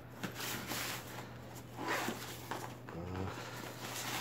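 Hand rummaging inside a PU-leather messenger bag: soft, uneven rustling and scraping as items and the lining are moved about.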